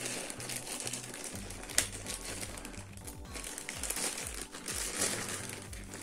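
Clear plastic bags of wooden game pieces crinkling in the hands as they are handled and opened, with irregular crackles throughout. Background music with a low bass line runs underneath.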